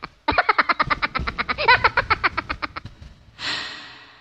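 A fast run of short pitched vocal pulses, about eight a second and laugh-like, played through a K1 live sound card's effects, then a brief hissing rush about three and a half seconds in that fades away.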